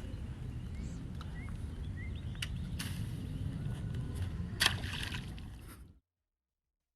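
Outdoor background: a steady low rumble with a few faint chirps and light clicks, one short louder rustle near the end, then the sound cuts off about six seconds in.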